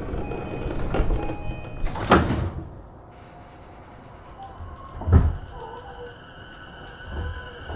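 Sliding passenger doors of a JR E233-5000 series electric train closing with a loud knock about two seconds in, after which the platform noise drops away; two more knocks follow about five seconds in and at the end.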